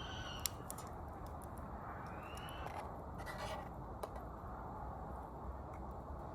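Wood-burning stove burning in a canvas tent: a steady low hiss with scattered small crackles and ticks. Two faint short whistles rise and fall, one right at the start and one about two seconds in.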